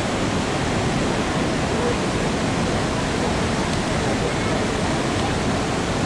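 Manavgat River pouring over a wide, low waterfall and through rocky rapids: a steady, even rush of water.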